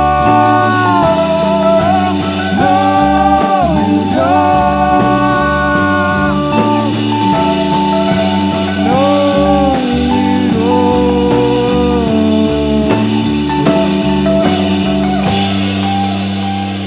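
A rock band playing the closing bars of a song: drums, a stepping bass line and long held melody notes that slide between pitches. It eases off slightly near the end.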